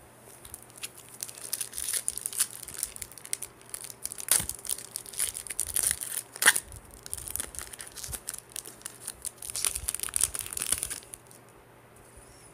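Foil wrapper of a Topps baseball card pack crinkling and tearing as it is pulled open by hand. A sharp snap comes about halfway through, and the crackling stops about a second before the end.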